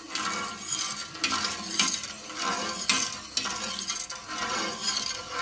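Metal spoon stirring thick green-corn porridge in an aluminium pot, with irregular scrapes and light clinks against the pan. The porridge is stirred without stopping while it thickens, so that it doesn't stick to the bottom.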